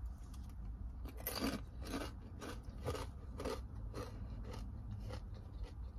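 Close-up crunching and chewing of a crispy fried crab rangoon, in short crisp bites about two a second.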